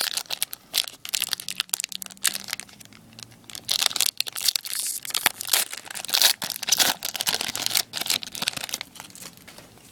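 Wrapper of a hockey trading-card pack being torn open and crinkled: an irregular run of crackling rustles that dies down near the end.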